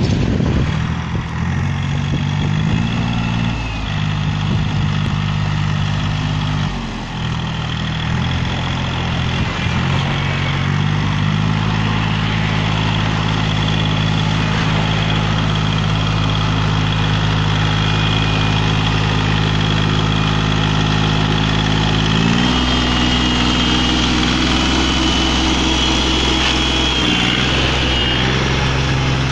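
Iseki TA210 compact tractor's diesel engine running under load while its rear rotary tiller churns soil. The engine speed steps up and down several times and runs highest for the last several seconds.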